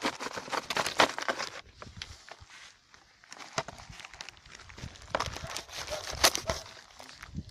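Plastic packaging bag crinkling and rustling in irregular crackles as it is handled and cut open with a knife, with a short lull in the middle.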